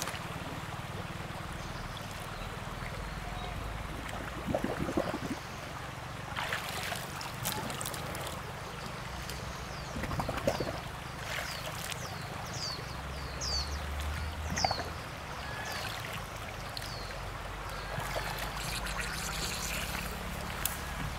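Water running and splashing, with several louder splashes, over a steady low hum. A small bird chirps repeatedly near the middle.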